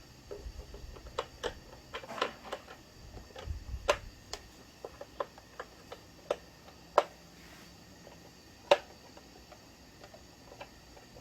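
Irregular light clicks and taps of hard plastic toy parts being handled and taken apart, with two sharper, louder clicks about seven and nine seconds in.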